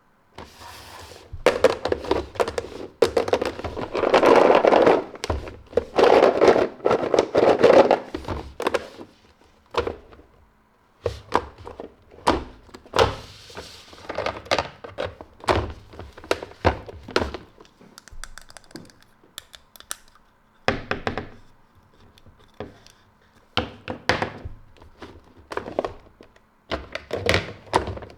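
Hands handling plastic toys and their packaging: a run of taps, knocks and clacks, with denser, louder handling noise between about four and eight seconds in.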